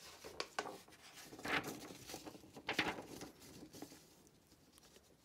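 Handling noise: a plastic drill trigger switch with its wires and capacitor being picked up and turned in the hands, and a sheet of paper rustling, in a few short rustles and clicks, the loudest about one and a half and three seconds in.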